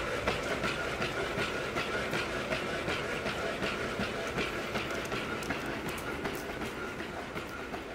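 Boston Dynamics Spot quadruped robot walking: a steady electric whine from its leg motors with its feet tapping in an even rhythm, a few steps a second. The sound slowly fades toward the end.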